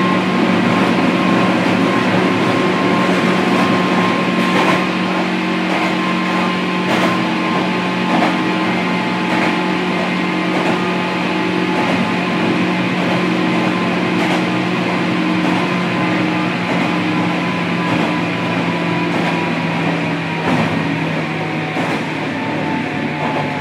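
Inside the motor car of a 103-1500 series electric train (KuMoHa 103-1512) while it is running: steady traction-motor and gear hum, with the wheels clicking over rail joints about every second or so. The hum's pitch sags slightly near the end.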